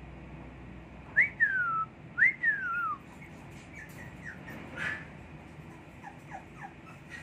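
A puppy gives two loud, high whimpering cries about a second apart, each jumping up in pitch and then sliding down, followed by a few faint short squeaks.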